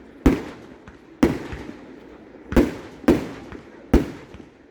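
Fireworks display: five sharp bangs at irregular intervals of about half a second to a second and a half, each trailing off after the blast.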